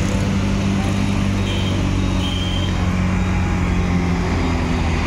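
Road traffic at a city junction: a steady drone of car, auto-rickshaw and motorbike engines passing and idling. Two short high beeps sound about a second and a half and two seconds in.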